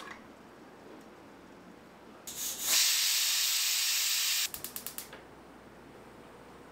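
Stainless steel pressure cooker whistling: a loud, steady steam hiss starts about two and a half seconds in, lasts nearly two seconds, and breaks off into a quick run of short sputters. The cooker has come up to pressure and is venting steam through its whistle while it boils chickpeas and potato.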